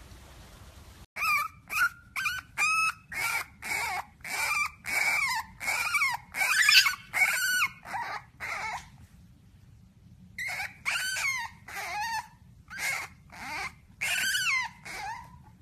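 A puppy yipping and barking in a rapid string of short, high-pitched calls whose pitch bends and drops, about two a second, starting suddenly and breaking off once briefly midway.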